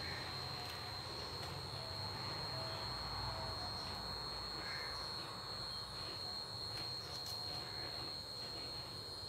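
A cricket drones as one steady high-pitched note throughout, over faint rustling as crisp Thai crepes (khanom bueang) are picked through on a plate.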